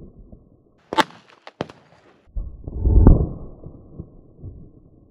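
Two sharp cracks about two-thirds of a second apart, from a Beretta 21A .22 LR pistol firing. A second later comes a louder, low rumble lasting about a second.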